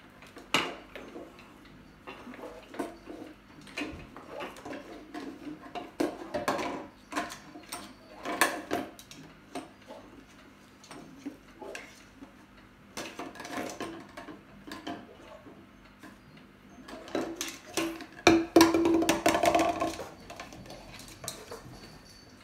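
A cockatoo playing with its toys: bursts of clattering, clinking and rattling made of many quick clicks, busiest about a third of the way in and again near the end.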